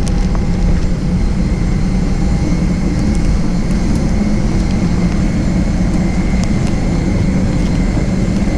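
Boat engines running with a loud, steady low drone and a faint high whine above it.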